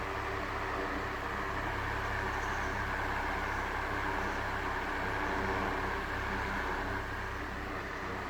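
A small electric motor running steadily, a constant hum with a whirring hiss and no change in speed.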